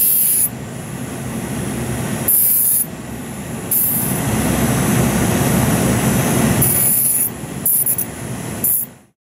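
Electric micromotor handpiece running with a polishing disc mounted, a steady whirring noise, with high-pitched squealing hiss that comes and goes about six times and cuts off abruptly near the end.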